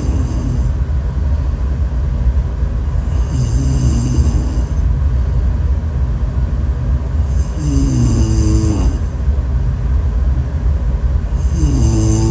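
A person snoring in a slow, regular rhythm: drawn-out snores about four seconds apart, each falling in pitch with a high hiss on top, three in a row. A loud, steady low rumble runs underneath.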